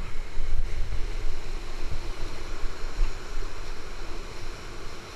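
Whitewater rapids rushing steadily, with low buffeting rumble on the helmet-camera microphone as the wearer moves.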